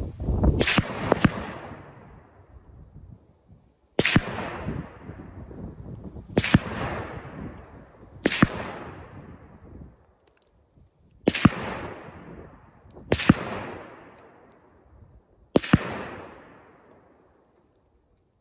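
PSL-54C semi-automatic rifle firing eight shots of 7.62x54R: two about half a second apart, then six more spaced two to three seconds apart, each followed by a rolling echo that fades over a second or two.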